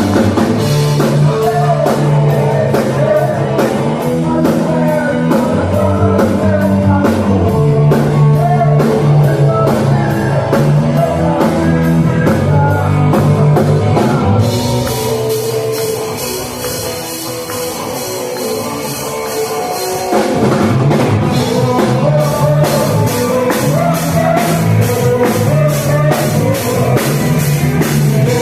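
Rock band playing a song on drum kit and electric guitar, with a steady drum beat. About halfway through, the band drops to a quieter, thinner break for about five seconds, then the full band comes back in.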